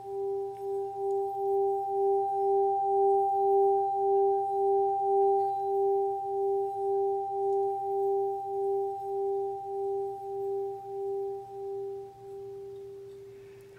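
Solar plexus singing bowl sung by rubbing a mallet around its rim: one steady hum with a higher overtone, wobbling about twice a second and swelling in the middle. Near the end the rubbing stops and the bowl rings on and fades.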